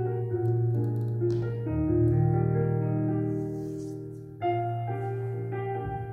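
Slow piano music with held chords. A deep bass note comes in about two seconds in, the sound then fades, and a fresh chord is struck late on.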